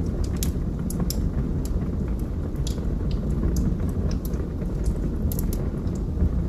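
Wood fire burning in a fireplace: a steady low rumble with sharp crackles and pops, about two a second.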